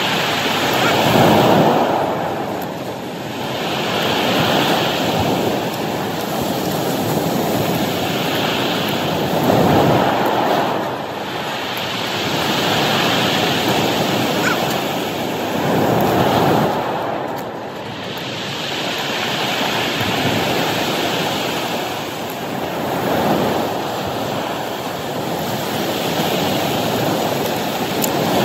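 Ocean surf breaking on a cobble beach, a wave crashing about every five to seven seconds with a hiss in between.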